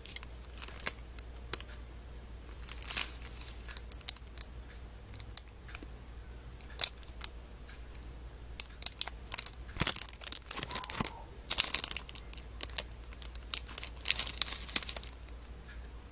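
Toy packaging being handled and opened by hand: scattered clicks and taps, with bursts of crinkling and tearing of plastic and card, the busiest about ten to fifteen seconds in.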